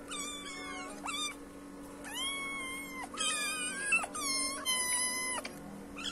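Young kittens meowing over and over, about six high-pitched calls in quick succession: they are begging for more food.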